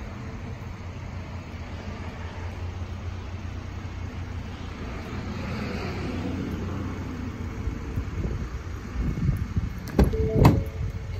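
The front door of a 2024 Ford Maverick pickup opened by its outside handle near the end, with a couple of sharp clicks and then a loud clunk as the latch lets go. Before that there is only a steady low rumble.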